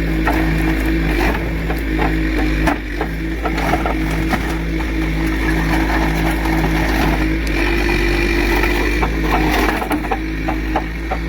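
Engine of a piece of heavy equipment running steadily, its pitch stepping up briefly about seven seconds in, with scattered knocks and cracks from the structure being pushed down.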